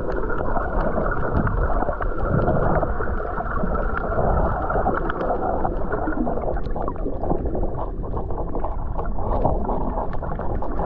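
Muffled underwater churn of sea water stirred by surf, heard with the microphone beneath the surface, with many small clicks and crackles over it.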